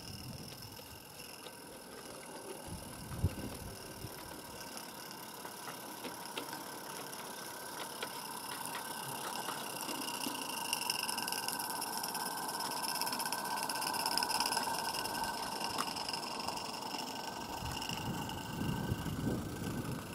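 A Regner 'Konrad' 0-4-0T live-steam garden-railway locomotive running, with steam hiss and clatter. It grows louder as it approaches and passes, and near the end its small feldbahn wagons rumble and click over the rails.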